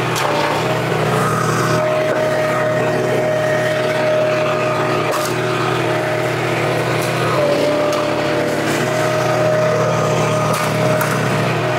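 Gas engine of a Wolfe Ridge 35 HO log splitter running steadily under hydraulic load as ash rounds are split. A few sharp knocks of wood, about halfway through and twice near the end.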